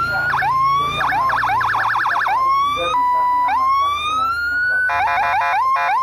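Homemade electronic siren module sounding through a small horn speaker, its pattern changing as jumper wires are touched: repeated rising wail sweeps, a fast yelp warble about a second in, a short steady tone midway, and a rapid chirping pattern near the end.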